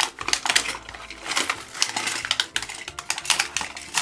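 Thin clear plastic blister packaging crackling and snapping as it is torn off its card backing, with small plastic toy cars clicking and knocking together, in a dense run of irregular clicks.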